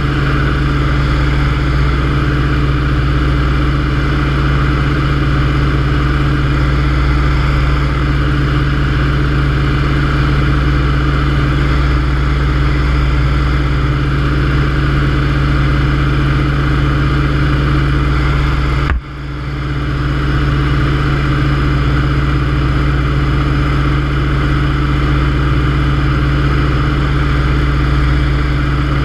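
A Yak-52's nine-cylinder M-14P radial engine and propeller running steadily in flight, heard from inside the cockpit as a loud, even drone. About two-thirds of the way through, the sound drops sharply for a moment and then swells back.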